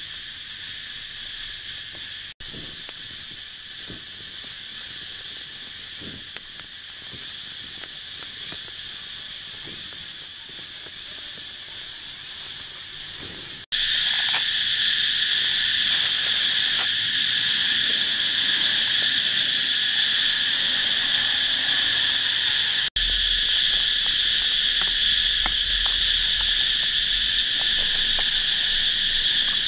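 Loud, steady chorus of forest insects, a high buzzing spread over several pitch bands. It drops out for an instant three times, about two, fourteen and twenty-three seconds in, and its pitch balance shifts slightly after each break.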